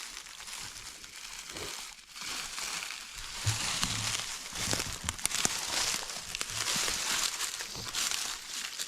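Footsteps crunching and rustling through dry leaf litter, slow and uneven, getting louder about two seconds in.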